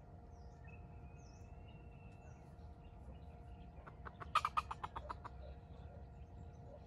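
Red junglefowl clucking: a quick run of about ten clucks lasting about a second, a little past the middle.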